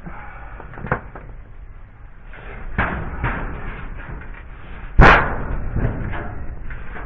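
A few knocks and thumps, with one sharp bang about five seconds in that is the loudest and rings on briefly.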